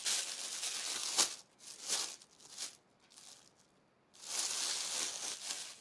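Paper rustling as a glossy booklet is handled and its pages turned: two longer stretches of rustling with a few short rustles between.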